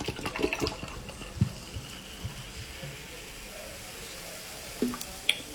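Orange juice being drunk noisily: a few clicks and gulps in the first second and a half, then a steady hiss of liquid for about three seconds, and two short mouth sounds near the end.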